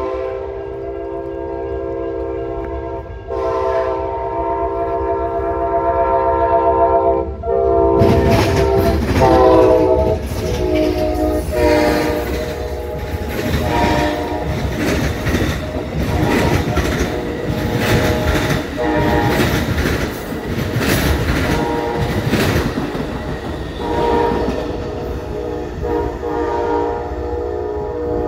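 Amtrak Genesis P42DC diesel locomotives sounding their multi-note horn in two long blasts, then shorter ones, as the passenger train comes in. About eight seconds in, the train passes close by with a loud rumble and rapid clatter of wheels on the rails, and the horn sounds again near the end.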